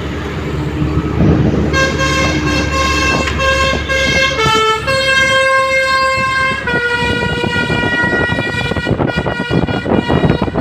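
Indonesian bus 'telolet' multi-tone Basuri horn playing a tune of long held notes, starting about two seconds in and changing pitch every second or two, with engine noise underneath.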